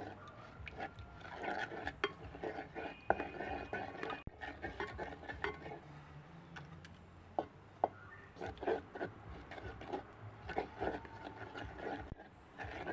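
Kitchen utensils clinking, knocking and scraping against a cooking vessel, in irregular short strokes with brief ringing, as in stirring or mixing ingredients.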